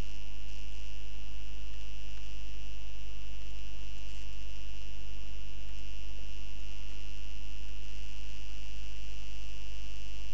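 Steady electrical hum with evenly spaced overtones and a constant high-pitched whine on the recording, with a few faint ticks.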